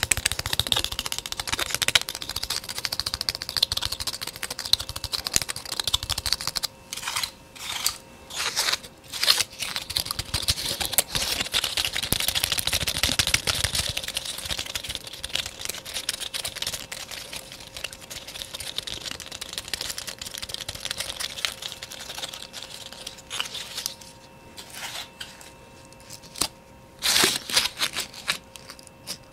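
Fast, dense ASMR tapping, a rapid stream of light taps. It breaks into short separate bursts about a quarter of the way in and again near the end.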